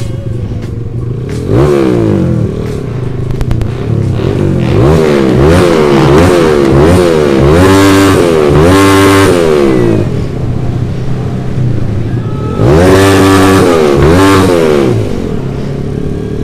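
Honda CB motorcycle engine revved in quick throttle blips while riding, each blip sweeping up and down in pitch: a run of blips, a short steadier stretch, then two more about thirteen seconds in. The bike is being revved hard on a cheap piston that is said to hold up.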